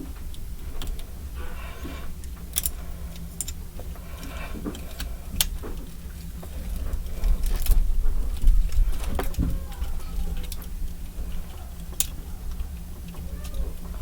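Plastic gunpla model kit parts clicking and snapping as a shoulder piece is pulled off and the parts are moved for the transformation: scattered sharp clicks over a steady low hum.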